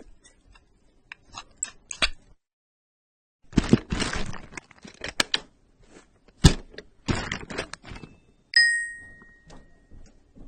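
Small objects being handled for sound effects: scattered clicks, knocks and rattles, with one sharp knock about six seconds in. Near the end comes a single metallic ding that rings out for about a second.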